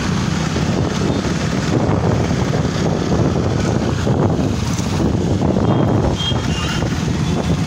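Wind buffeting the microphone over the steady running of a motorcycle ridden slowly, at about 20 km/h.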